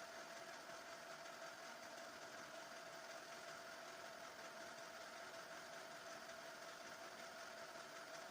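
Metal lathe running steadily: a faint, even machine hum with a constant whine.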